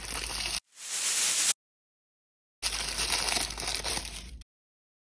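Plastic blind-bag wrappers crinkling as they are handled and torn open, with a short tearing rip about a second in. Each stretch cuts off abruptly into dead silence.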